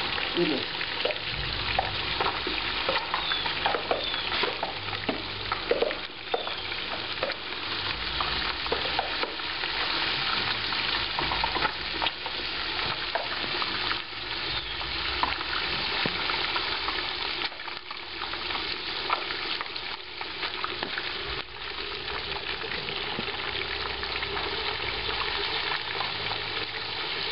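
A whole 20-pound turkey being lowered into 350–360 °F cottonseed oil in an outdoor turkey-fryer pot: the oil sizzles and bubbles hard, with many scattered crackles and pops, as the bird's moisture flashes to steam. A steady low rumble comes and goes underneath.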